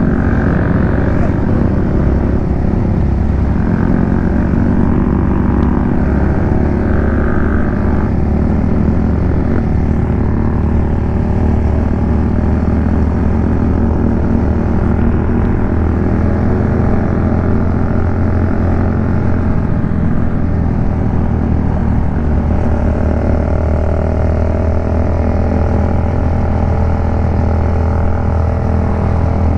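Honda CBR500R's parallel-twin engine running steadily while riding, with a constant low hum that holds the same pitch throughout.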